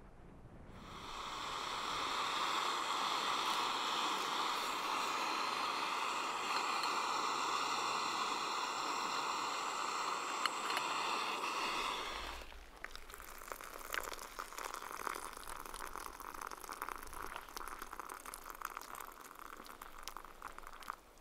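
Camping gas canister stove burning under an aluminium kettle, a steady hiss that cuts off about twelve seconds in. After it come quieter crackling and rustling with many small clicks.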